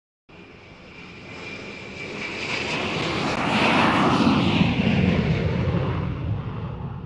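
Logo-intro whoosh sound effect: a rushing sound that swells for about four seconds, sweeps downward in pitch at its peak, then fades away.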